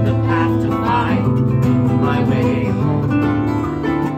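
Live acoustic music: a strummed acoustic guitar and a plucked harp playing together.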